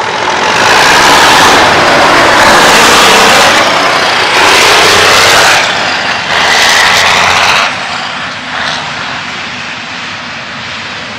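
1979 International Transtar cabover semi tractor's Cummins 290 diesel running hard through its exhaust stack as the truck drives past and pulls away. The loud, steady engine sound has two brief lulls around four and six seconds in, then fades steadily as the truck moves off down the road.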